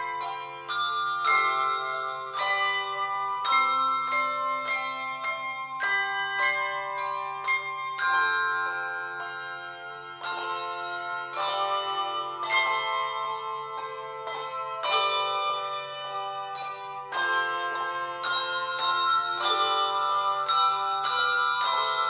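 A handbell choir ringing brass handbells, playing a tune in chords: a steady run of strikes, each bell ringing on and overlapping the next.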